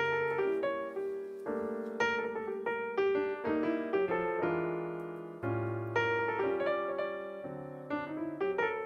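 Background piano music: a gentle melody of struck notes that ring and fade, with chords underneath.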